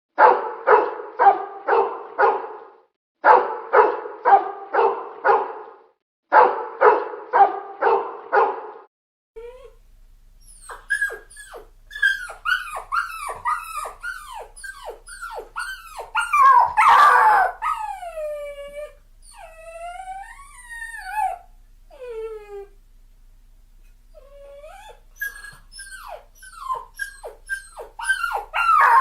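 A dog barking in three quick bursts of about five barks each, then a different dog yipping and whining in short falling-pitch cries, with a few longer drawn-out howls, the loudest about halfway through.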